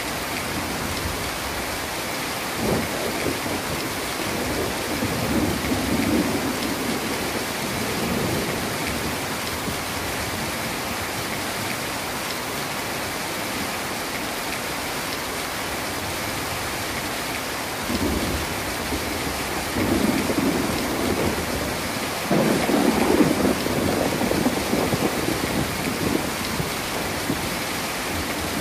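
Heavy rain falling steadily, with thunder rolling through it twice: a rumble a few seconds in, and a longer, louder one in the second half.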